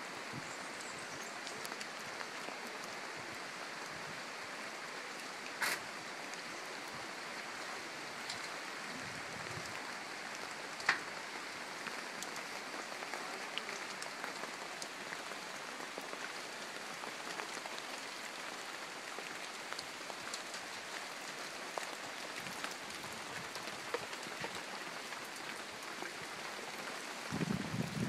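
Steady, even hiss of rainforest ambience, like rushing water or rain on foliage, with two sharp clicks about six and eleven seconds in.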